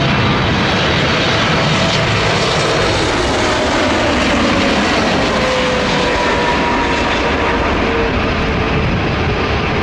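Boeing 777-300ER's GE90 turbofan engines on landing approach, a steady jet roar with faint tones that slowly fall in pitch as the airliner passes low overhead.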